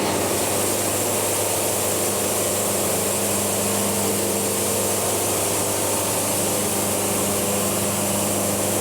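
Portable band sawmill cutting a log: the engine running steadily under load while the band blade moves through the wood with an even high hiss that sets in right at the start. The blade is lubricated by a gravity drip.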